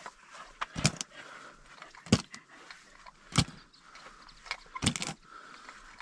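Shotgun cartridges being handled while swapping No. 7 shot for No. 9: a few sharp clicks and knocks about a second apart.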